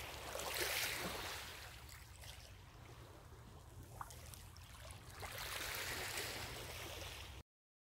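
Small lake waves washing onto a pebble shore, the hiss of the wash swelling twice, over a steady low rumble. The sound cuts off abruptly near the end.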